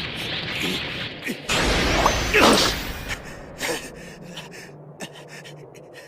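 Anime energy-blast sound effects: a loud rushing burst sets in about a second and a half in, then fades into scattered crackles.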